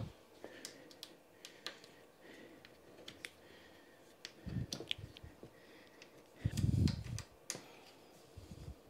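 Scattered light clicks and taps of a tool working a small screw and nut tight on a bicycle repair stand's parts, with two dull thumps about halfway through and again a couple of seconds later.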